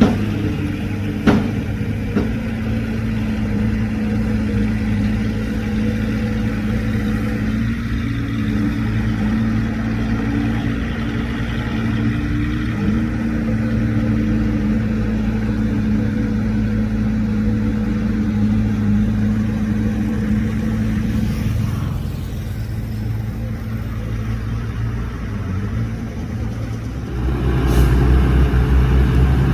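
Heavy diesel engine of earthmoving equipment running steadily, with a single sharp click about a second in. Near the end the engine grows louder and rougher, as under load.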